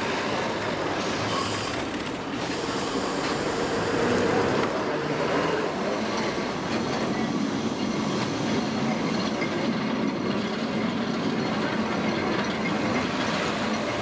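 1930s vintage Lisbon tramcar running along its rails, a steady running noise of the wheels and car in motion.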